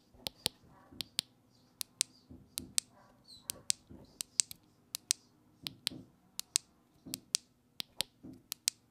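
Buttons of a GeekVape Aegis Mini vape mod clicking close to the microphone, pressed and released again and again in quick pairs, a couple of dozen sharp clicks in all. They are very clicky.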